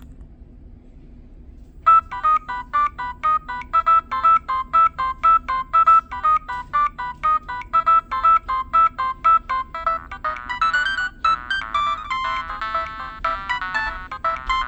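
Preloaded ringtone playing on a Nokia 6010 mobile phone, starting about two seconds in after a faint hum: short repeated electronic notes, about three a second, with several tones sounding together, growing busier with more notes layered in from about ten seconds in.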